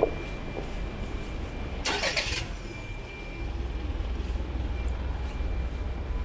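Street traffic rumbling steadily, with a short hiss about two seconds in.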